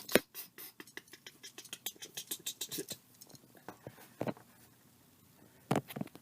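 Plastic action figures being handled and moved on a surface: a quick run of light clicks and taps, then a few louder single knocks.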